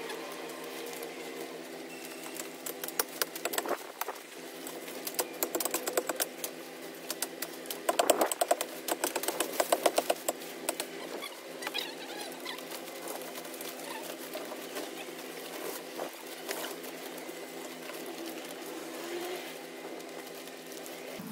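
Dry branches and twigs crackling and snapping as cut brush is dragged and gathered by hand, in rapid runs of crackling that are densest about eight to ten seconds in, over a steady low hum.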